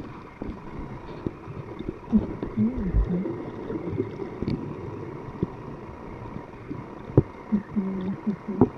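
Underwater sound picked up by a camera in a waterproof housing: a steady water hiss with scattered sharp clicks and crackles, and a few muffled, wavering low tones about two seconds in and again near the end.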